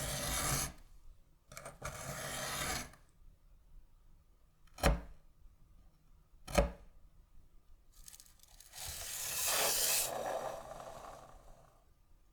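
Three short bouts of scraping or rubbing, the last and longest near the end, with two sharp knocks in between.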